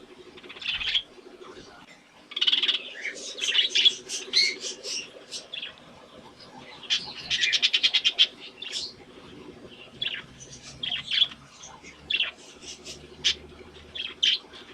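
Budgerigars chirping and warbling in quick irregular bursts, with a fast rattling chatter about seven to nine seconds in.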